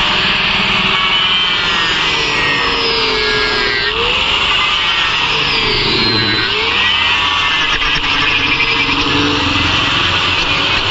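An electric power tool's motor running steadily with a high whine, its pitch dropping and recovering twice around the middle.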